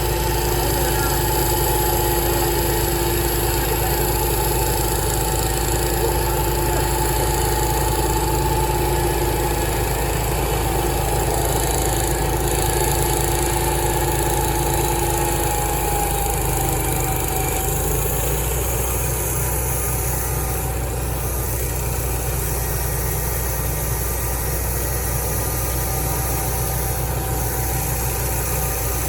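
Sawmill machinery running steadily, with an engine hum and a whine that drops away a little past halfway.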